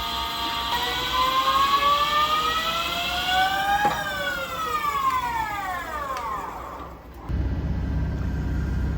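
Lathe spindle drive whining, its pitch slowly rising for about three seconds, then falling away after a click around the middle as the spindle winds down. A low, steady rumble starts near the end.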